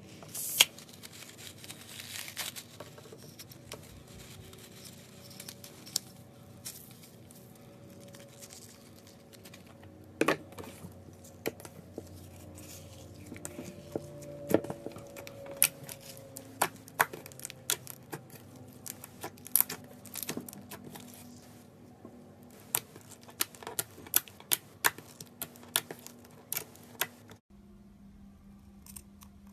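A slime-filled stress ball being cut open: crackling, tearing and many sharp little snaps and clicks, which stop abruptly about two seconds before the end.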